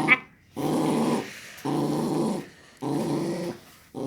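Dog growling: three drawn-out growls of about half a second each, with short pauses between them.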